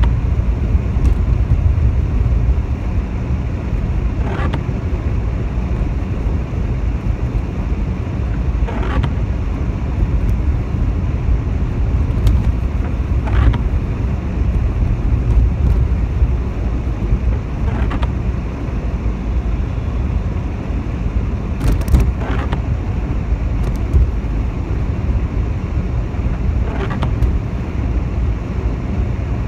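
Inside a moving car on wet city streets: a steady low rumble of engine and tyres on the wet road, with a brief sweep about every four and a half seconds from the intermittent windscreen wipers.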